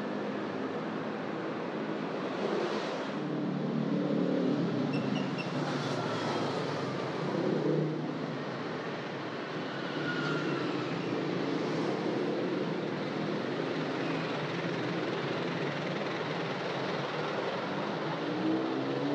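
Busy street traffic: vehicles passing with a steady mix of engine hum and tyre noise, and one engine rising in pitch as it speeds up near the end.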